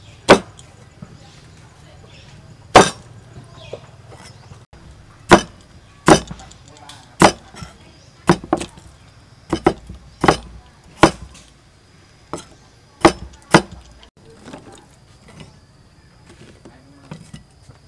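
A cleaver chopping corn cobs and carrots on a thick wooden chopping board: about a dozen sharp knocks, irregularly spaced, that stop about 14 seconds in.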